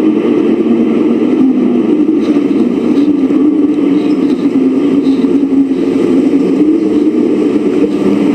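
Deep, steady, wind-like drone with a wavering hum running through it: an unexplained noise from the sky, likened to a tornado of wind or a forest sound, heard with no wind at ground level.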